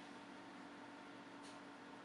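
Near silence: a steady faint hiss with a low hum, and a single faint click about one and a half seconds in.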